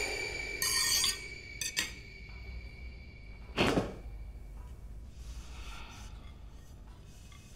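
Ceramic plates scraping as food is scraped from one plate onto another, stopping about a second in, followed by a few light clicks. About three and a half seconds in comes one short loud thump, the loudest sound, over faint steady high tones.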